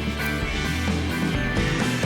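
Background music with guitar and a steady rock beat.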